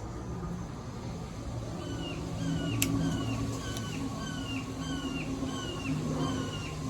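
Ceiling fan running with a low motor hum. From about two seconds in, a short falling chirp repeats evenly, roughly every two-thirds of a second, and there is a single sharp click near three seconds in.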